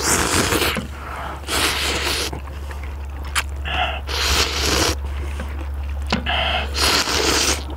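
People slurping spicy seafood ramen noodles: about six loud slurps, each under a second long, with a steady low hum underneath.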